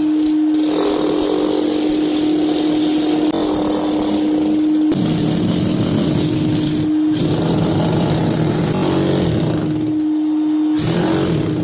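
Power tool running at a steady hum while cutting into engineered wood flooring, its note breaking into rougher, lower noise under load for a couple of seconds around the middle and dropping out briefly now and then.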